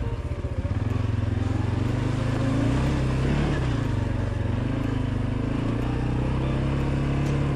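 CF Moto 520L ATV engine running steadily while riding, its note dipping and picking up again about three seconds in.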